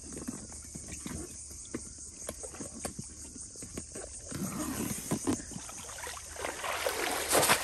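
Short scattered knocks and rustles from handling a fabric fishing bag with a fish inside. About halfway, water starts sloshing and splashing as someone wades through shallow river water, loudest near the end.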